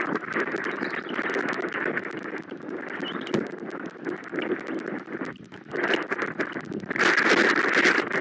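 Rain falling on the nest and the outdoor camera microphone: a steady hiss of patter dense with small drop clicks, getting heavier about seven seconds in.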